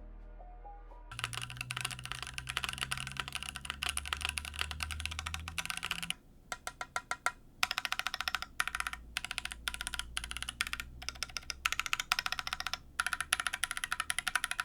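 Rapid typing on an Ajazz AC081 aluminium gasket-mount mechanical keyboard with one layer of packing foam in its case: dense runs of key clacks starting about a second in, broken by a few short pauses. The board still sounds pretty bad: the foam has not cured the case's resonance and ping.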